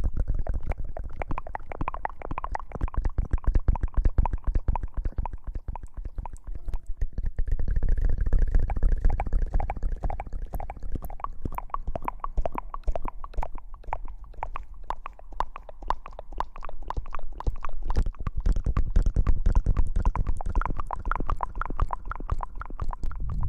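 Close-miked rubbing and scrubbing directly on an ASMR microphone, hair-washing style: a dense run of rapid crackles over a heavy low rumble, easing briefly about six seconds in.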